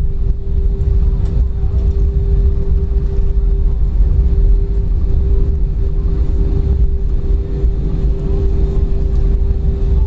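Inside the cabin of an Airbus A320 taxiing: a steady low rumble from the engines and wheels, with a constant mid-pitched hum over it.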